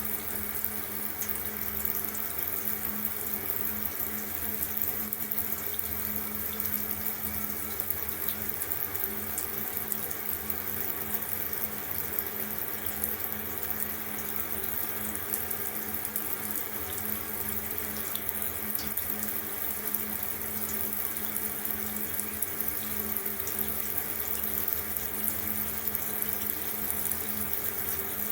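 Water running steadily from a tap into a sink, an unbroken rush with a steady low hum underneath.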